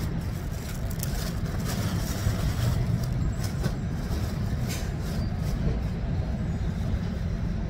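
Steady low rumble of outdoor background noise, with a few faint rustles and clicks.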